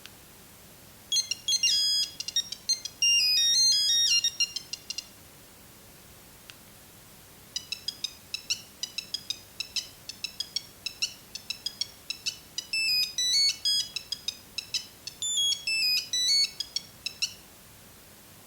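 Nokia 6310 mobile phone playing its built-in ringtones through its own small speaker: a melody of high-pitched beeping notes for about four seconds, a pause of a couple of seconds, then a longer tune of short, evenly spaced beeps broken by quick runs of notes, stopping shortly before the end.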